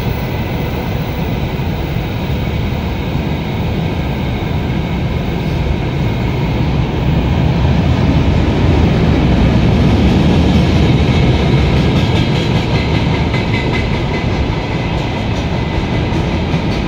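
Freight train of gondola wagons rolling past, a steady rumble of steel wheels on the rails that swells louder in the middle.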